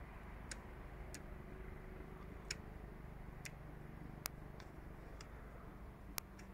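Click stops of an SVBONY SV215 3–8mm zoom eyepiece's ring being turned by hand: about ten faint, sharp clicks at uneven intervals, each as the ring falls into the detent for a focal-length setting.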